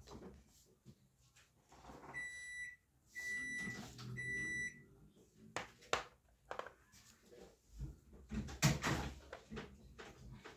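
Three electronic beeps, each about half a second long and evenly spaced. They are followed by light knocks of chess pieces being set down on the board, and a louder thump near the end.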